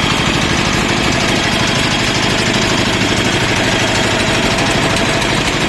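Engine of a mini concrete lift machine running steadily, with a fast, even knocking beat.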